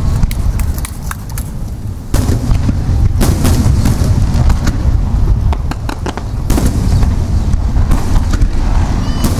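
Aerial firework shells bursting in a rapid barrage (star mine): deep booms rumble without a break under many sharp cracks, with fresh loud volleys about two seconds and six and a half seconds in.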